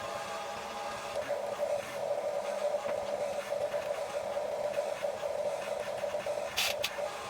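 Huina 1550 RC excavator's small electric motors and gearboxes whirring steadily as the machine works, with a short clatter near the end.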